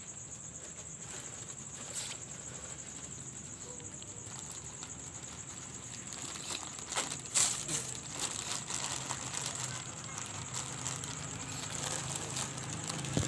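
Steady high chirring of night insects, with scattered crackles and clicks that come more often from about six seconds in, the loudest about seven seconds in.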